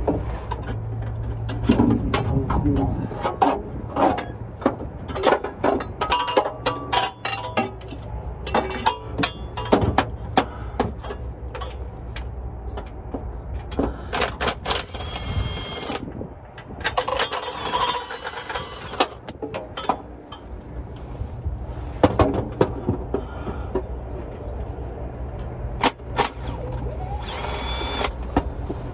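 A cordless power tool runs in short whining bursts, three of them between about the middle and the end, as bolts are taken off a 4L60E automatic transmission during its removal. Frequent metallic clicks and clanks of hand work on the underside of the vehicle come between the bursts, over a steady low rumble.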